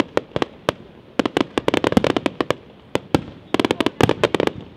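Di Matteo fireworks display going off in dense volleys of sharp bangs, several clusters with brief gaps between them, as low fans of comets and stars are fired.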